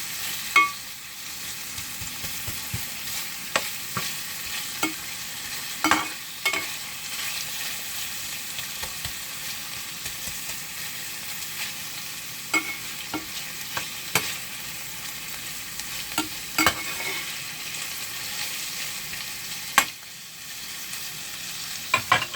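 Pork, garlic and onion sizzling in a frying pan with a steady hiss, while a utensil stirs and knocks against the pan in sharp clacks every second or two.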